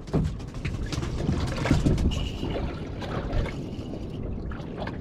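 Wind on the microphone and water lapping against a small boat's hull, with light knocks of rod handling and a brief high squeak about two seconds in.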